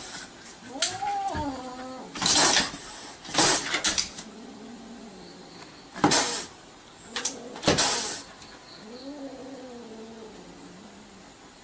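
Domestic cat yowling at a dog, a short yowl about a second in and a longer, lower one near the end, with four short hisses between them.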